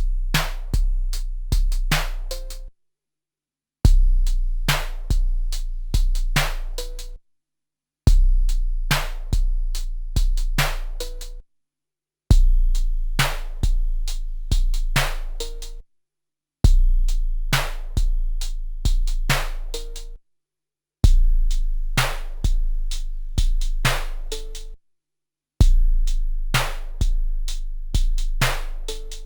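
12-bit SP-1200 drum sampler playing the same short beat seven times, each pass about three and a half seconds long with about a second of silence between. The beat has deep kick drums and sharp snare and hi-hat hits.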